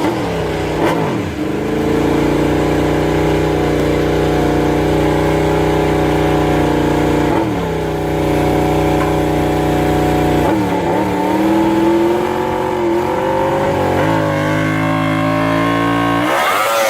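MotoGP racing motorcycle engine running at high revs. Its pitch drops sharply several times, holding steady in between, and climbs again near the end.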